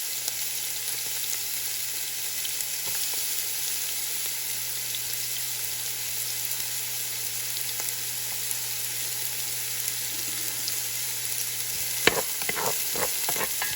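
Chopped onion and garlic sizzling in hot olive oil in a pot, a steady hiss. Near the end, a sharp knock and a run of quick clatters as the pot is stirred.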